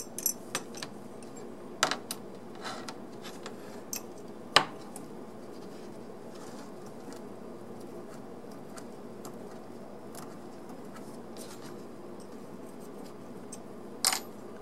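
Scattered light clicks and knocks of small metal parts being handled: a die-cast locomotive frame and brass-rimmed wheelsets picked up, fitted and set down, the loudest knock about four and a half seconds in. A steady low hum runs underneath.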